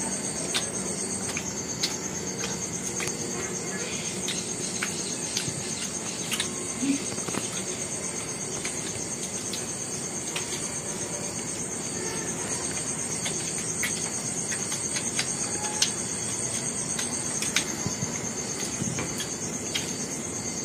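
Insects trilling steadily at a high pitch, with scattered small clicks and crunches of people chewing and handling egg puffs and pizza.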